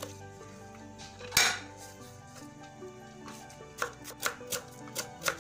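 Kitchen knife slicing cabbage on a wooden chopping board: one sharp knock about a second in, then a quick run of cutting strokes, about two to three a second, near the end.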